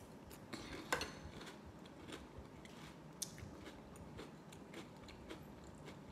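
Faint chewing and crunching of a mouthful of Cap'n Crunch cereal in milk, heard as scattered small crisp clicks, with a sharper click about a second in.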